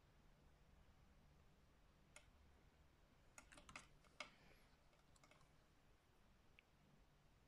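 Near silence broken by a few faint, light clicks and taps of small nail tools and containers being handled, with a quick cluster of clicks a little past the middle and the loudest single tap about four seconds in.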